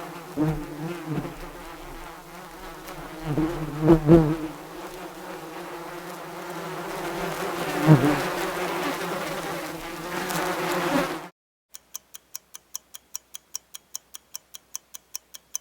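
A bee buzzing, its pitch wavering and swelling louder a few times, cutting off about eleven seconds in. Then a clock ticks about four times a second: the countdown timer for the answer.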